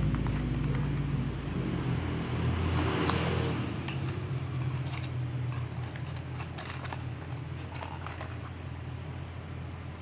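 Handling noise of cardboard knife boxes and Swiss Army knives being moved on a wooden workbench: a brief rustle about three seconds in, then a scattered run of light clicks and taps, over a low steady hum.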